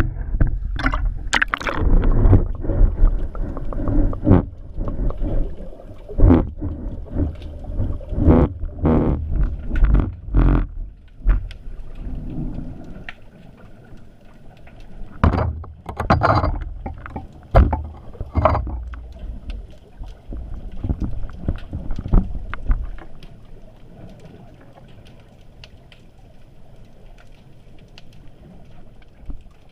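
Water sloshing and splashing around an underwater camera as it goes from the surface down into the sea, with a heavy low rumble and many irregular knocks and clicks. After about 23 seconds it settles into a quieter, steady underwater hiss.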